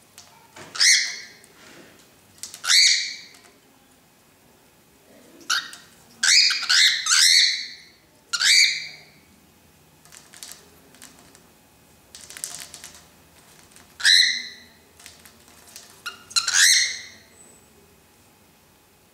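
Cockatiel giving harsh, angry squawks at a small ball on its perch, mostly single calls with a quick run of four in the middle and a double near the end. A short rushing noise comes between them about twelve seconds in.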